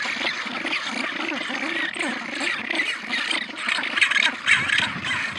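A penguin colony, many birds calling over one another in a dense, continuous chorus of braying and squawking calls.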